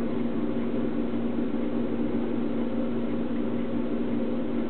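Steady low mechanical hum under a constant hiss, with no change in level.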